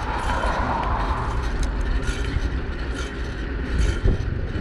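Steady wind rumble on a GoPro's microphone and rolling noise from a single-speed cruiser bicycle being ridden, with a few faint clicks.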